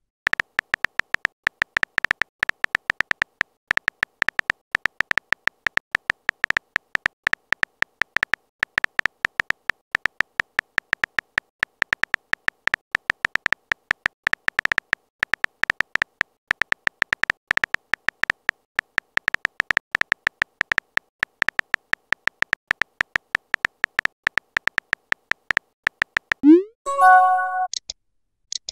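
Simulated phone keyboard clicks from a texting-story app, a fast, uneven run of key taps as a message is typed out. About 26 seconds in the typing stops, followed by a short rising tone and a chime: the message-sent sound.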